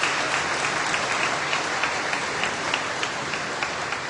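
Audience applauding steadily, the clapping easing off near the end.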